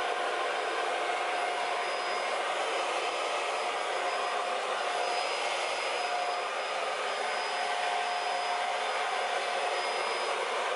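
Hoover Air Steerable upright vacuum cleaner running: a steady rush of motor and airflow with a thin, even whine.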